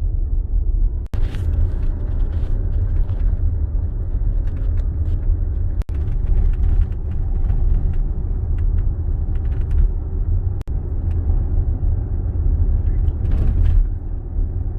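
Road and tyre noise inside a moving Tesla Model X electric car: a steady low rumble with scattered faint ticks, broken by three brief drop-outs.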